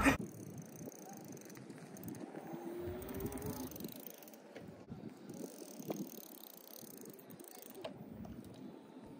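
Fat-tyre electric bike riding past over dry grass, faint, with a brief rising motor whine about two and a half seconds in and a few light knocks later.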